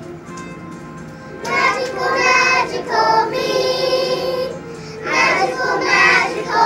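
A group of young children singing a song together in phrases. The singing comes in loudly about a second and a half in, with a short break just before the last phrase.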